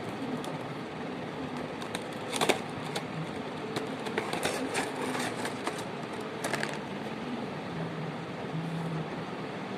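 Action figure packaging being handled: a sharp crackle about two and a half seconds in, then a run of short clicks and crinkles between about four and seven seconds, over a steady background rumble.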